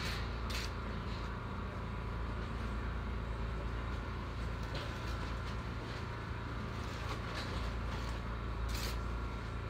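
A steady low mechanical drone with a faint steady whine, over which a steel trowel clicks and taps on brick as a brick is set and tapped down into the mortar: a few short sharp taps, two at the start and one louder one near the end.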